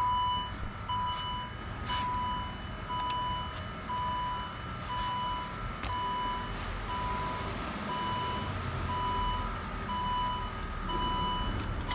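Saab 9-3's in-cabin warning chime beeping steadily at one pitch, about once a second, with a few faint clicks.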